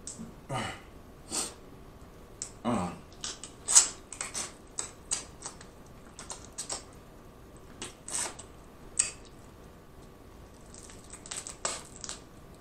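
Snow crab leg shells being snapped and cracked apart by hand: an irregular string of sharp cracks and clicks, the loudest about four seconds in, with some eating sounds between them.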